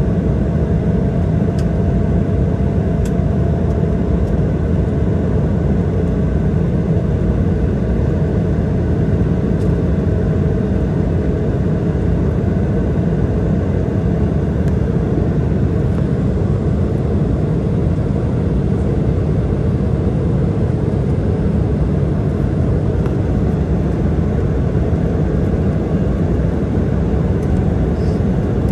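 Steady cabin roar of an Embraer 175 in its climb after takeoff: the General Electric CF34-8E turbofan engines and rushing airflow, heard from inside the cabin.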